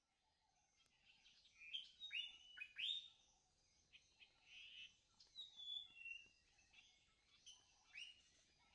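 Songbirds singing: a faint run of varied chirps and quick downward-sliding whistles.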